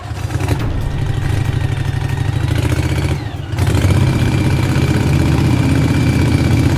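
Motorboat engine sound effect starting up and running with a steady rough low rumble. It dips briefly a little past three seconds, then runs louder as the boat pulls away.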